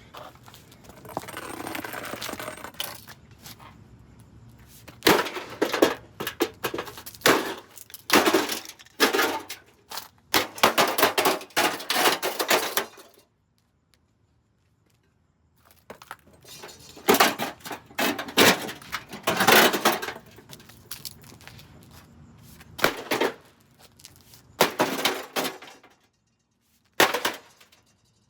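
A Dometic RV microwave oven being smashed apart: repeated crashing and breaking blows, in rapid runs with a silent pause of about three seconds in the middle and a few single crashes near the end.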